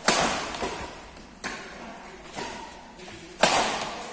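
Badminton rackets striking a shuttlecock in a fast doubles rally: four sharp hits about a second apart, the hardest an overhead smash at the start and another about three and a half seconds in. Each hit rings on in the echo of a large hall with sheet-metal walls.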